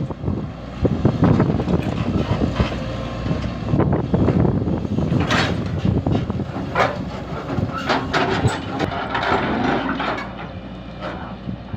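Excavator's diesel engine running, with irregular scrapes and knocks from the bucket digging out a foundation, thickest in the middle.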